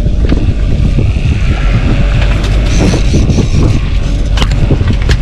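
A boat's motor running steadily under a heavy low rumble of wind on the microphone, with a couple of short knocks near the end.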